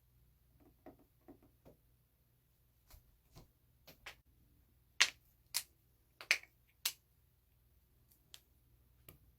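Joints cracking: a series of short, sharp pops. A few faint ones come first, then louder ones, the loudest four in quick succession about halfway through.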